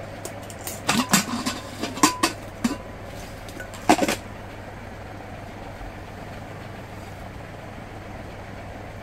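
Lid of a non-stick handi pressure cooker being twisted open: a run of clinks and knocks against the pot rim, then a louder clatter about four seconds in as the lid is laid down. A steady low hum runs underneath.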